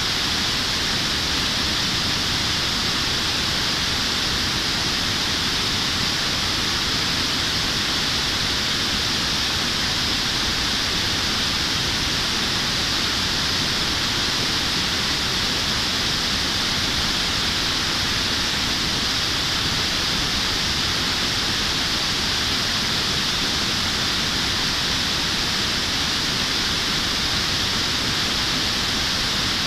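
Steady rushing of river water pouring over a low concrete weir: an even, hissy rush that does not let up or change.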